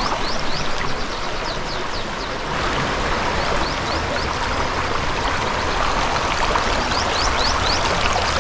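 Shallow river running over stones and gravel: a steady rushing flow with bright trickling and splashing. It grows a little louder and fuller about two and a half seconds in.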